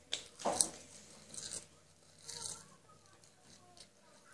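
A person chewing a mouthful of food: a few short, faint crunches in the first couple of seconds.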